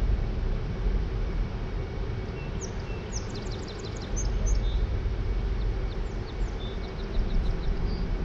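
A bird sings a rapid run of high, downward-sliding chirps from about two and a half seconds in until near the end, over a steady low rumbling noise.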